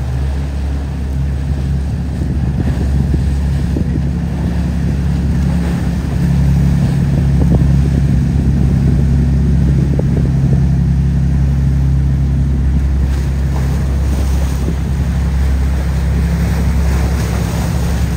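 Flybridge sportfishing boat's inboard engines running at speed, a steady low drone, with its wake rushing. Wind noise on the microphone grows in the second half.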